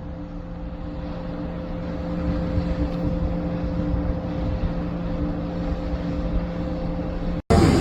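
A steady engine-like drone: a constant hum with rushing noise that slowly grows louder, then cuts off abruptly near the end.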